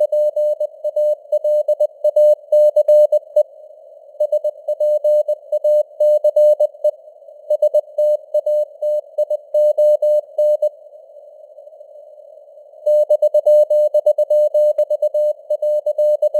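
Morse code sent at 20 words per minute: a single steady tone keyed on and off in dots and dashes over a faint hiss of simulated radio noise. The pauses between words and sentences leave only the hiss, the longest about two seconds in the second half.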